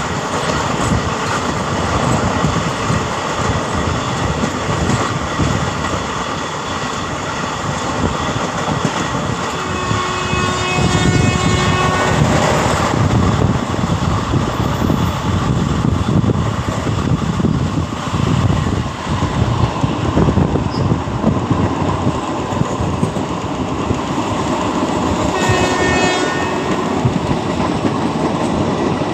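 Indian passenger train running at speed, heard from an open doorway: a steady rush of wheels on rail, with clickety-clack and wind noise. A train horn sounds for about three seconds about ten seconds in, and again briefly near the end.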